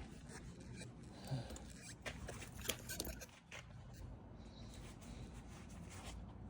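Faint handling noise: scattered light clicks and scrapes of small parts being moved about, most of them bunched near the middle, over a low background hum.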